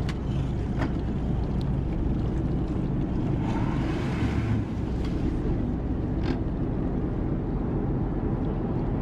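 Tour boat's engine running with a steady low rumble, with a brief rushing hiss about halfway through and a few sharp knocks.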